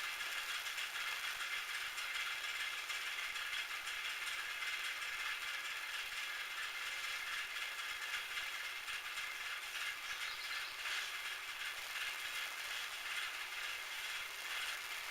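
Metal lathe running steadily, its gear train whirring with a fine, rapid rattle.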